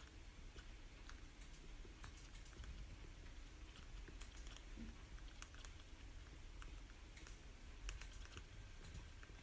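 Faint, irregular light clicks and ticks over a low steady background rumble.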